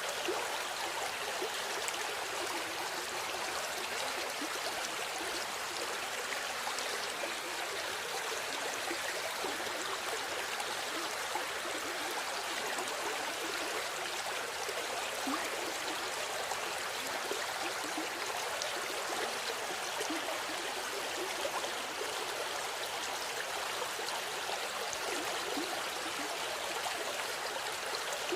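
River water flowing and babbling over stones in a steady rush, with fine splashing and gurgling.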